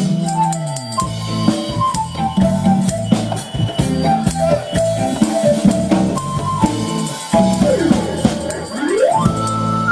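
Live Thai folk-rock (phleng phuea chiwit) band playing an instrumental passage: a lead melody over drum kit and bass. Near the end the lead pitch slides down and back up, then settles on a long held note.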